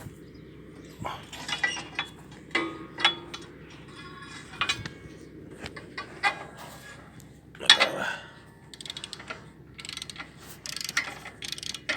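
Metal seeder parts and hand tools clinking and clanking: a series of irregular sharp knocks, several with a short metallic ring, the loudest a little before two-thirds of the way through.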